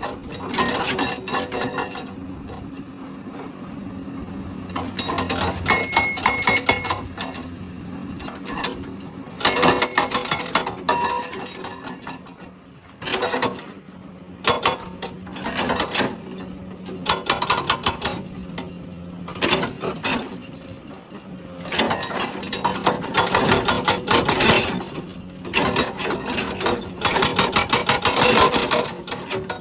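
Hydraulic breaker on a Komatsu PC200 excavator hammering rock in bursts of rapid blows, each burst lasting one to three seconds with short pauses between, about nine bursts in all. The excavator's diesel engine runs steadily underneath.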